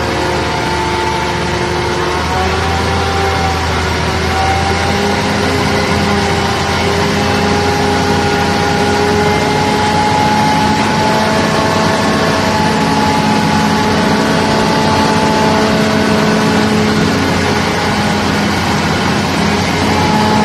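Self-loading garbage truck's engine running steadily while its hydraulic loader arm tilts a compactor container: a continuous drone with several held tones that drift slightly in pitch.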